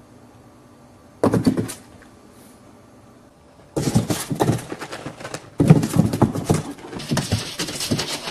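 Puppy paws scrabbling and knocking on a cardboard box: a short burst of scratching about a second in, then a near-continuous run of scrabbling and thumps from about four seconds in.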